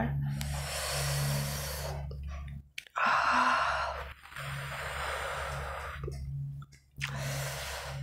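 A woman exhaling heavily in four long sighs, one after another, in pain from heavy padlock earrings dragging on her earlobes.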